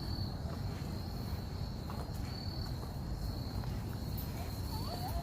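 An insect trilling steadily on one high, unbroken note, over a low steady rumble.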